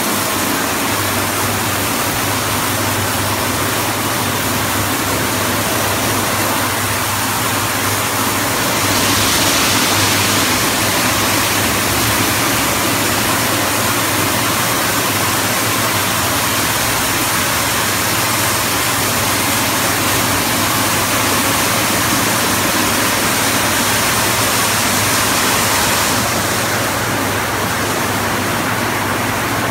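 Automatic rollover car wash at work: rotating brushes scrubbing a car under water spray, a steady rushing hiss over a low machinery hum. The spray grows louder and brighter from about nine seconds in until near the end.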